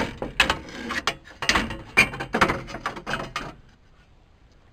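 A string of irregular clicks, knocks and rattles of parts being loosened and shoved aside in a car's engine bay, stopping about three and a half seconds in.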